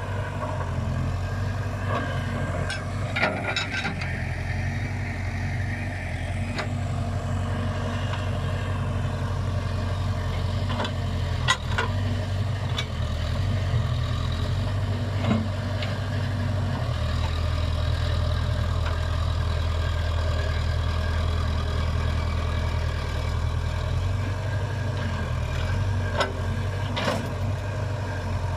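Case Super K backhoe's diesel engine running steadily as it works, with a few sharp knocks scattered through.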